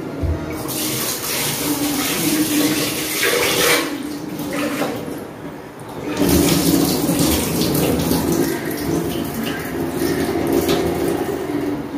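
Kitchen tap running, likely filling or rinsing a vessel in the sink; the flow stops about four seconds in and starts again about two seconds later.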